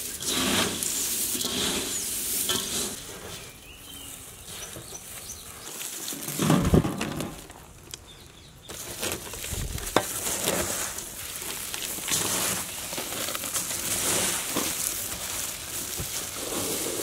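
Hands tossing and pressing a dry bread-crumb coating in a steel bowl: a grainy, crunchy rustle that thins out for a few seconds and then picks up again. A dull thump comes about six and a half seconds in.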